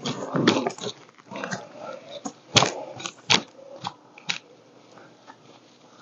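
Footsteps crunching on gravel and dry leaves: a string of short, irregular crunches, the loudest about two and a half and three seconds in, dying away near the end.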